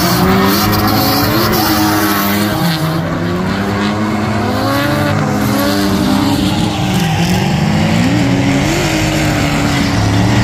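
Two drift cars running in tandem, their engines revving hard at high rpm. The engine pitch dips and climbs again several times as the throttle is worked through the slide, over the hiss and squeal of the tires sliding.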